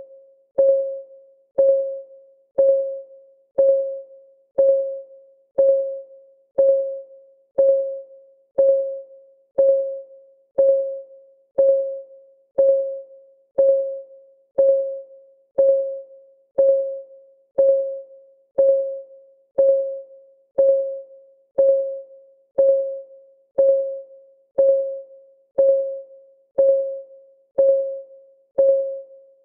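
Timer's clock ticking sound, one tick a second, each tick a short pitched tock that dies away quickly.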